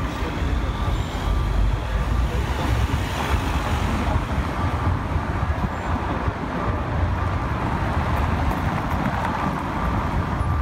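Steady city street traffic noise from cars and vans passing, with wind rumbling on the microphone.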